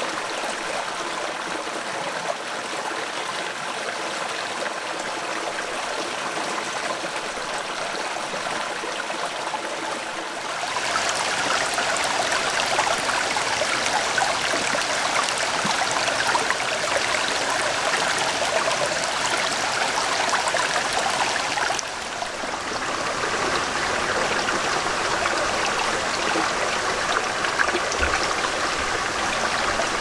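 Mountain stream running over rocks, a steady rush of water that grows louder about ten seconds in.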